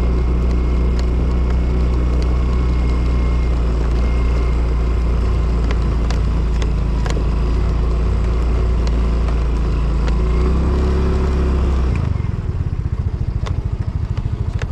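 Yamaha motor scooter's engine running steadily while riding across grass. About 12 s in it drops to a pulsing idle as the scooter pulls up and stops.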